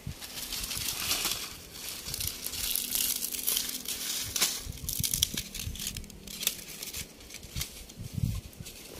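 Dry palm fronds being torn and snapped by hand, a dry crackling rustle with many sharp snaps, easing off near the end as the pieces go into the fire.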